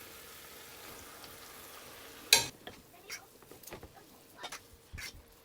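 Noodles and vegetables being stirred and tossed in a frying pan with a utensil. A soft steady sizzle is followed a little over two seconds in by a sharp clatter of the utensil against the pan, then lighter scraping knocks.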